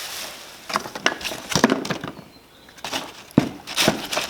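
Tools and packaging being handled while a tool box is unpacked: irregular bursts of crinkling, rustling and clicking, in two clusters.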